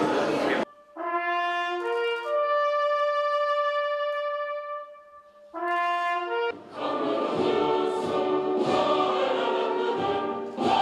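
Ceremonial brass-band music: slow, held brass chords, then from about six and a half seconds in a fuller band with choir voices.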